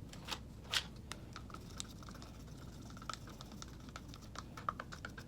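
Small, irregular clicks and light taps, several a second, from plastic paint cups and containers being handled while paint is poured.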